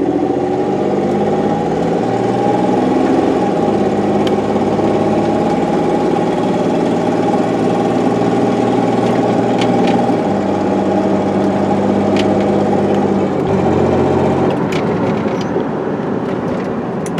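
Jeep's engine and drivetrain heard from inside the cab while being driven, running steadily, its engine note stepping up and down in pitch a few times.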